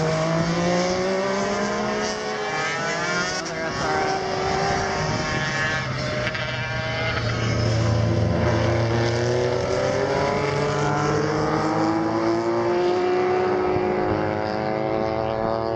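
Racing motorcycles going through a corner, their engine notes rising and falling in pitch with several bikes heard at once.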